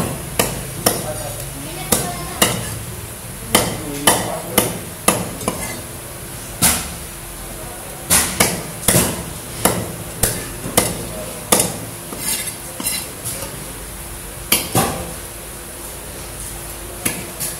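Heavy fish-cutting cleaver scaling a pompano on a wooden chopping block: a string of sharp scraping strokes and knocks, about one to two a second, with two short pauses.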